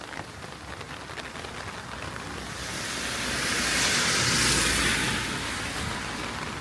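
A car passes on a rain-soaked road, the hiss of its tyres on the wet surface swelling to a peak about four seconds in and then fading away.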